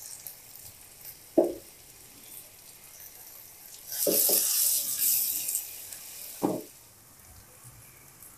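A wooden spatula stirring chopped onions and ginger-garlic paste frying in oil in a nonstick pan. There is a louder stretch of sizzling and scraping about four seconds in, with a few short knocks, one near the start and two around the stirring.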